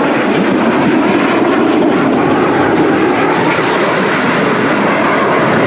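Jet noise from several Aermacchi MB-339 trainers of the Frecce Tricolori flying overhead: a loud, steady rushing sound from their Rolls-Royce Viper turbojets.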